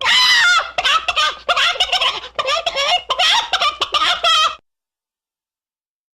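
A rapid run of short, high fowl-like clucking and gobbling calls, rising and falling in pitch, that stops abruptly about four and a half seconds in.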